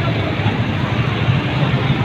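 Small motorcycle and scooter engines running as they pass close by, a steady dense engine noise.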